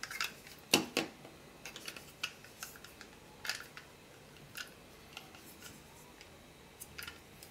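Hard plastic action-camera mount parts clicking and tapping as they are handled and fitted together by hand. There are two sharper clicks about a second in, then lighter scattered clicks.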